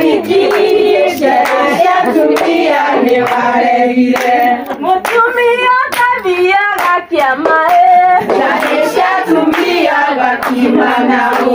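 A group of women singing together and clapping their hands in rhythm.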